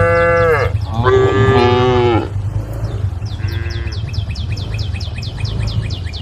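Cows mooing: two loud lowing calls in the first two seconds, each falling in pitch, then a fainter moo about three and a half seconds in. After that comes a rapid run of high chirps, about five a second, over a steady low rumble.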